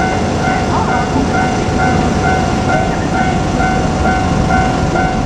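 Level-crossing warning bell ringing steadily at about two strokes a second, over the continuous rumble of a KiHa 200 diesel railcar passing over the crossing.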